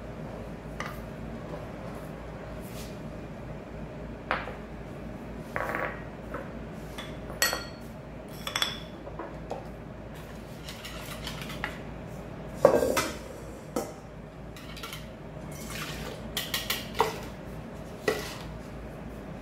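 Kitchen bowls and utensils being handled: scattered knocks and clicks of a wooden spoon and plastic mixing bowl, a couple of short ringing clinks, and one louder knock a little past halfway, over a steady low hum.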